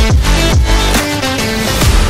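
Electronic background music with heavy bass and a steady beat.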